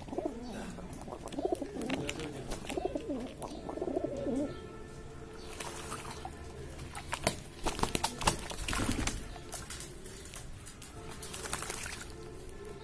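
Domestic pigeon bathing in a plastic basin of water: low pigeon cooing in the first few seconds, then bursts of splashing as it beats its wings in the water, several times through the second half.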